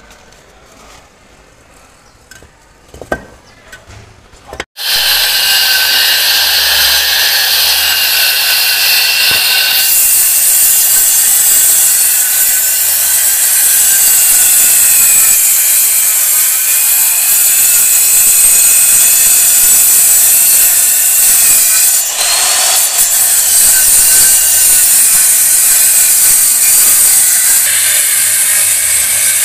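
Handheld electric circular saw cutting into a lightweight AAC block wall: after a quiet start with a few light knocks, it starts abruptly about five seconds in and runs loud and steady, its motor whine wavering in pitch as the blade bites into the block.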